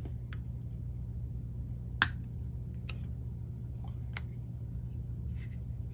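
Sharp little metallic clicks of pliers working at the edge of a cassette-deck capstan motor's metal housing, trying to pry its front cover off. One click about two seconds in is the loudest, with a few lighter ticks after it, all over a steady low hum.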